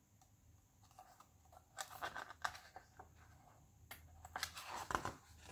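Faint rustling and light taps of a hardcover picture book's paper pages being handled and turned.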